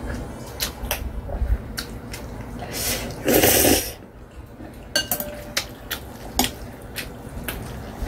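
Metal chopsticks and a spoon clicking against a glass bowl of ramyeon noodles, with a loud slurp of noodles about three seconds in.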